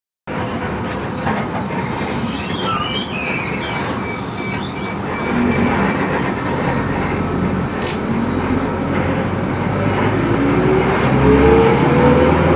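Cabin noise of a Transjakarta Mini Trans city bus under way: steady engine, road and rattle noise. A brief high-pitched squeal comes a few seconds in, and near the end the engine revs up with a rising pitch as the bus pulls away.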